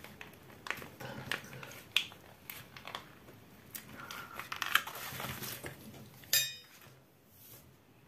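A soft plastic mayonnaise sachet being squeezed and handled over a plate: crinkling and squelching with scattered small clicks, then a single sharp, ringing clink of tableware a little past six seconds in.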